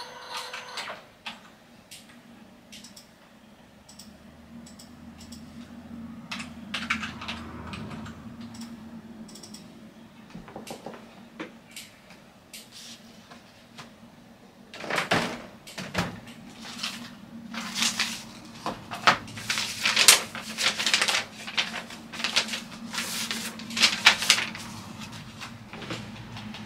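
Hands working at a computer desk: scattered light clicks, then from about 15 seconds in a louder, irregular run of clattering knocks and rustling, over a low steady hum.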